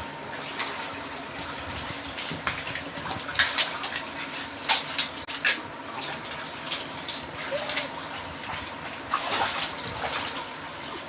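Children wading and splashing in a shallow paddling pool: steady sloshing water with irregular sharp splashes every second or so.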